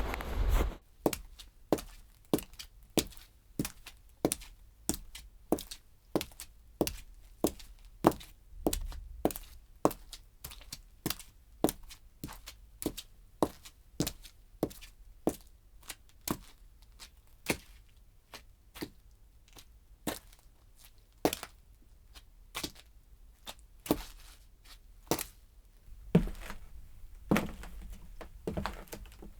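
Footsteps at a steady walking pace, each step a sharp click, about three steps every two seconds. Near the end the steps give way to a noisier scuffing.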